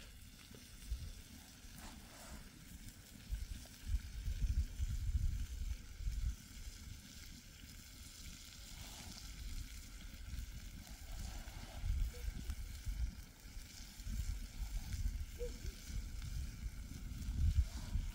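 Oil sizzling steadily in a small pan over an open brushwood fire, under a low, uneven rumble of wind on the microphone.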